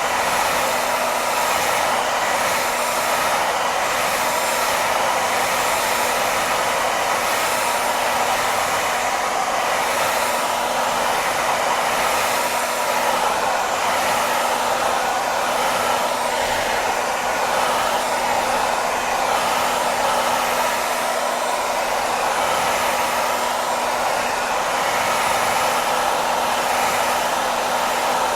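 Hair dryer running steadily: a constant rushing of blown air with a faint low motor hum underneath, played as white noise for lulling a baby to sleep.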